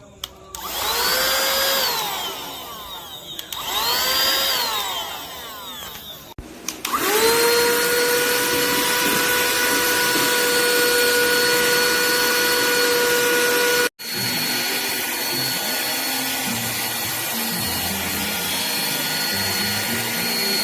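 Ruienbao 12000Pa cordless mini vacuum cleaner's motor. It gives two short bursts in which the whine rises and falls. Then it spins up and runs steadily with a high whine, and after a sudden break about halfway it keeps running as a steadier rush of air.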